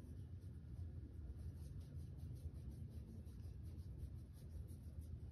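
A thin stream of used engine oil trickling from a 2013 Shelby GT500's drain plug hole into a plastic drain container, a faint, scratchy patter under a low rumble.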